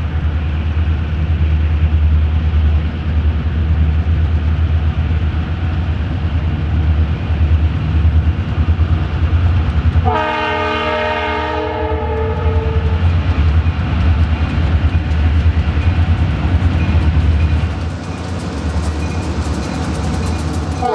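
Lead EMD GP38-2 diesel locomotive and the units behind it working under load as they approach, with a steady low engine rumble. The multi-note air horn sounds one chord about ten seconds in, lasting about two seconds. Wheel and rail clatter grows near the end as the locomotives draw close.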